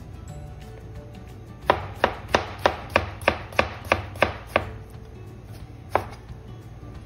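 Chef's knife chopping tomato slices against a plastic cutting board: a quick run of about ten sharp knocks, roughly three a second, starting a couple of seconds in, then a pause and one last knock near the end.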